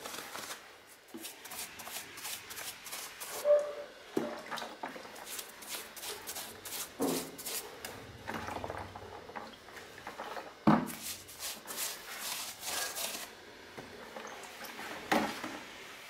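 Paintbrush scrubbing a PVA and water mix onto rough brickwork: runs of quick, scratchy bristle strokes, with a few sharper knocks between them.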